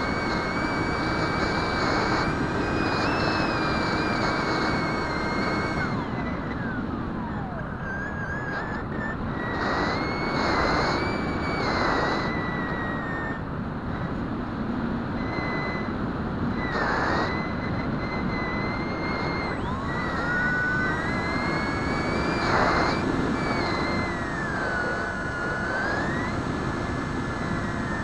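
Brushless electric motor and pusher propeller of a Bixler RC foam plane running in flight, a whine whose pitch wanders up and down with the throttle, over a steady rush of air noise.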